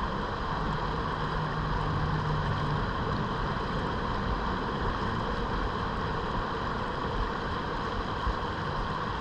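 Steady rush of river water pouring over a shallow riffle, heard from a kayak sitting in the current just below it.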